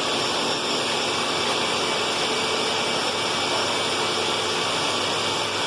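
Concrete drill running steadily: an even, unbroken mechanical noise with fixed steady tones.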